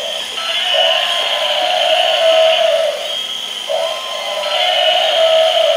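Several light-up electronic toy animals and dinosaurs sounding at once: their recorded sound effects overlap in a loud jumble, with one sound repeating about every three seconds over a steady hum.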